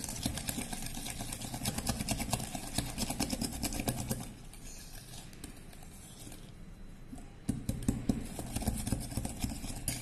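Wire balloon whisk beating butter and sugar in a glass bowl by hand, creaming them until fluffy: rapid clicking and scraping of the wires against the glass. The beating eases off for a few seconds in the middle, then picks up again.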